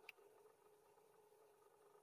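Near silence: a faint steady hum with one soft click just after the start.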